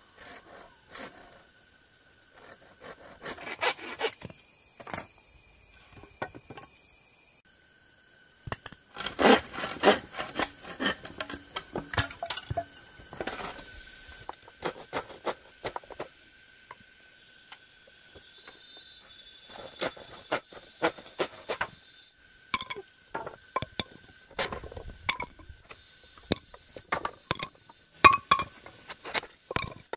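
Hand work on bamboo: irregular scraping, rubbing and knocking strokes in short bursts, over faint steady high tones.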